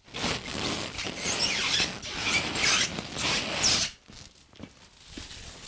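Clear plastic stretch wrap being pulled off its roll and wound around a bandsaw's base: a loud, continuous crinkling rustle with a few squeaks that stops about four seconds in.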